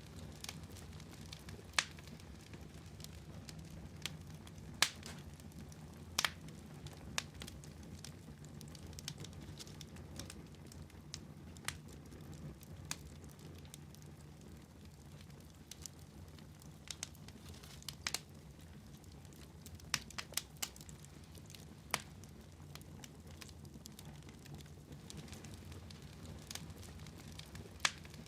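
Fire in a fireplace crackling: irregular sharp pops and snaps, a few every several seconds, over a low steady rumble of the burning.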